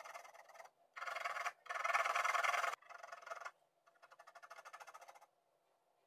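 Soft 14B matte graphite pencil hatching on drawing paper: runs of quick, scratchy back-and-forth strokes in about five bursts, the loudest around two seconds in, stopping a little after five seconds.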